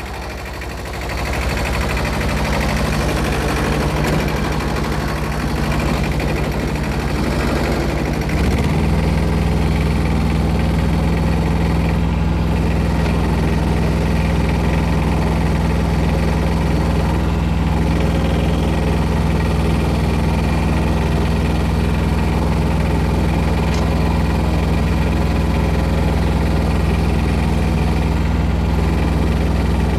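An engine running steadily, picking up speed about eight seconds in and then holding at the higher speed.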